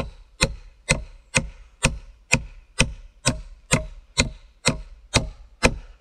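Steady chopping strokes on wood, evenly paced at about two a second, around a dozen in a row.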